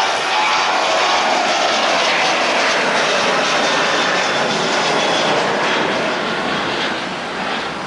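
Airliner engines at takeoff power passing by: a loud, steady rushing noise with a tone that slides down in pitch as the aircraft goes past, easing off a little near the end.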